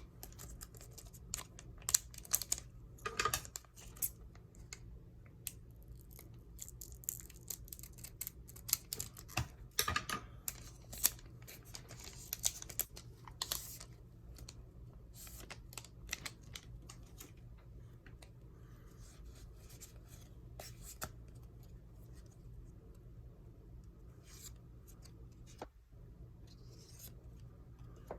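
Yu-Gi-Oh! trading cards and a foil booster pack being handled: sharp crinkles, tearing and card flicks, thick for the first half and sparser after, over a steady low hum.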